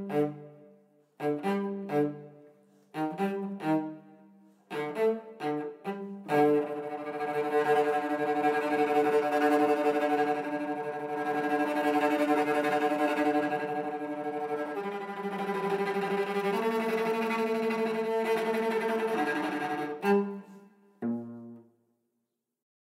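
Cello playing the closing bars of a tango part. First come short, detached bowed notes, then long held notes from about six seconds in, then one final short note, after which the sound stops.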